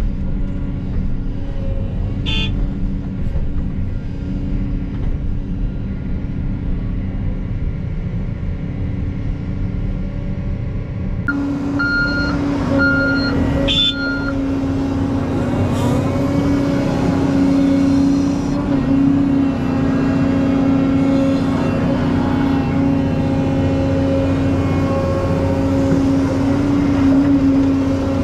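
Diesel engine of heavy earthmoving equipment running steadily under work. About eleven seconds in it grows louder, and a reverse alarm beeps three times about a second apart.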